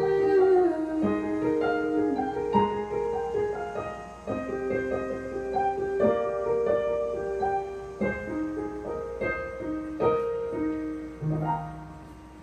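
Piano playing a slow instrumental passage of struck chords and melody notes, with a held note sliding down in the first second.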